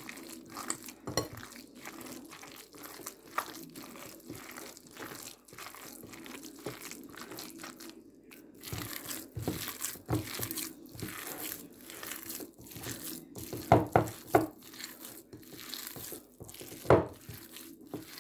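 A bare hand kneading a raw burger mixture of ground meat and chopped vegetables in a bowl: irregular wet squishing strokes, with a cluster of louder slaps about 14 seconds in and another near 17 seconds.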